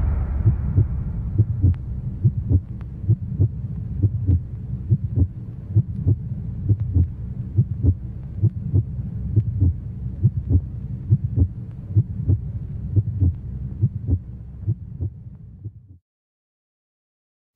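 Cinematic intro sound design: a low rumbling drone with a steady pulse of sharp ticks, about two a second. It fades out and stops near the end.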